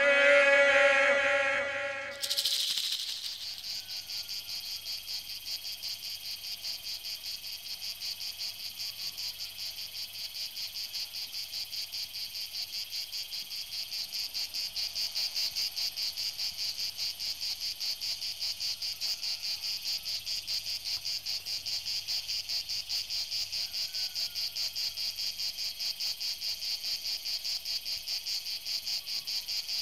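A musical note ends about two seconds in, giving way to a steady, shrill insect chorus with a rapid regular pulse, the daytime sound of summer heat in the countryside.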